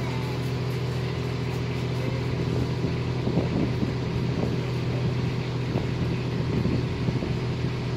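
A boat's motor running steadily under way, a low even hum heard from inside the covered launch.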